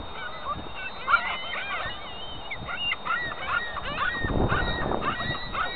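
A flock of gulls calling over one another at close range: many short, overlapping cries, growing denser and louder about four seconds in.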